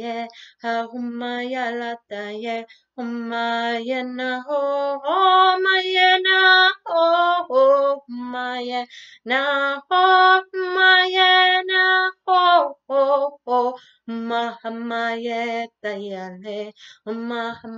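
A woman singing a light-language chant of flowing syllables in no known language. Short syllables at first, then higher, longer held notes in the middle that are the loudest part, then short lower phrases again.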